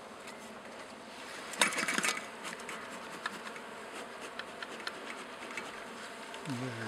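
Honey bees buzzing steadily around an open hive, with a brief loud burst of clicking and hiss about a second and a half in.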